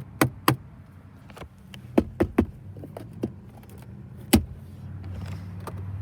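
Irregular sharp taps and knocks on a car's interior plastic trim, about nine strikes with the loudest about four seconds in, as the trim is tested for build quality. A low steady hum runs underneath.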